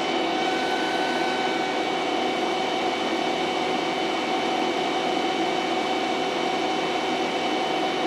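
Fieldpiece refrigeration vacuum pump running steadily, a constant mechanical hum with a few held tones, while it pulls a deep vacuum on a small bell jar of water.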